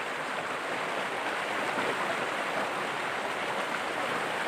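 Steady rushing of flowing water, even throughout with no distinct events.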